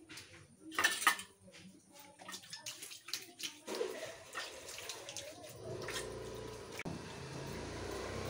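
Water splashing and hands scrubbing as a wet stone grinding roller and slab (ammi) are washed by hand, with a few sharp knocks about a second in and a steadier rush of water in the second half.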